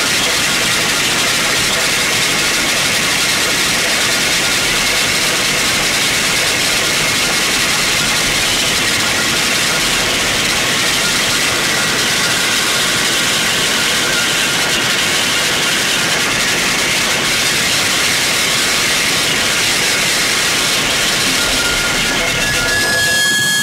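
Harsh noise music: a loud, dense, unbroken wall of hissing distorted noise with a few faint steady tones running through it. Near the end it briefly drops out and shifts to a new texture with fresh steady tones.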